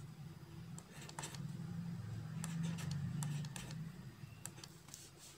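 A low hum that swells for a few seconds and fades, with a few faint taps of a stylus on a tablet screen.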